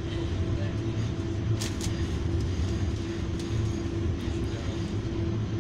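Interior noise of an Auckland AM class electric train: a steady low hum with a steady mid-pitched whine over it, and a few light clicks and rattles.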